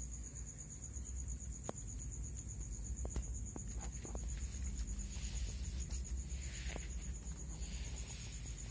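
Insects, likely crickets, trilling in one steady high-pitched tone over a low background rumble. There are a few small clicks in the first half and soft rustling from about five seconds in.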